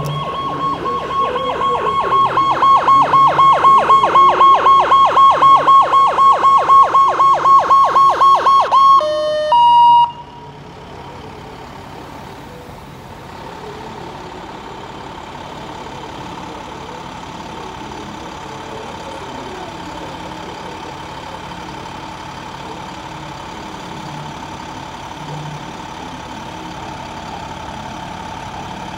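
Fire truck siren sounding a rapid rising-and-falling wail, about three cycles a second, for roughly nine seconds. It ends with a couple of short steady tones and cuts off suddenly. After that the fire truck's engine runs steadily, with a faint steady tone, as the truck rolls slowly closer.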